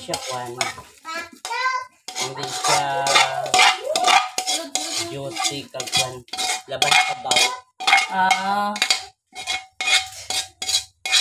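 A cooking utensil scraping and knocking against a metal wok in many quick strokes, the wok ringing with each knock, as cooked pancit noodles are scraped out of it.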